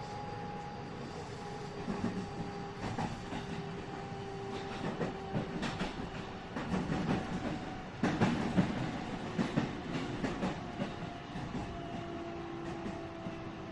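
Interior running sound of a JR West 207 series 1000-subseries EMU motor car with Toshiba GTO-VVVF traction equipment. The inverter and motor whine slowly falls in pitch as the train slows. Wheels clatter over rail joints in bursts through the middle.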